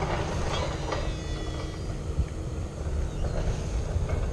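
Wind buffeting the action camera's microphone in a steady low rumble, over the light sounds of a baitcasting reel being cast and then cranked.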